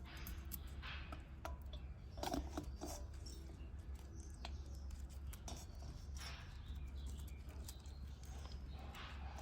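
Banana blossom florets being finely shredded on a boti, the upright curved kitchen blade: irregular soft cutting strokes and rustling of the sliced pieces, over a steady low hum.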